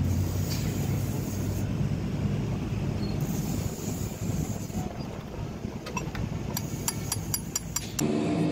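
Metal gearbox parts clicking: a quick run of about eight light metallic clicks with short rings, as a synchro sleeve is worked onto its splined gear shaft. A steady low rumble lies underneath.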